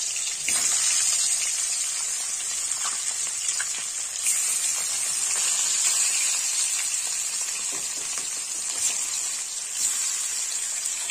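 Turmeric-coated fish steaks sizzling as they fry in hot oil in an aluminium kadai: a steady hiss that flares up briefly about half a second in and again around four seconds in as more pieces go into the oil.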